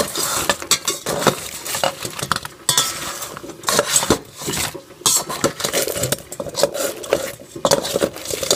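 A spoon mixing sauced chicken wings in a bowl, clinking and scraping against the bowl in quick, irregular strokes.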